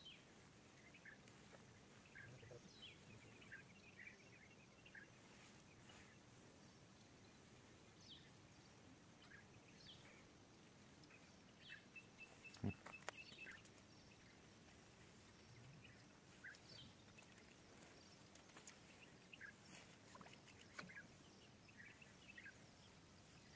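Quiet outdoor ambience with faint, scattered bird chirps and a short trill. A single sharp knock comes about halfway through.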